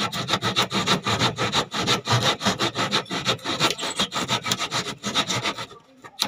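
Wood being hand-sawn in fast, even strokes, which stop near the end and are followed by a single sharp knock.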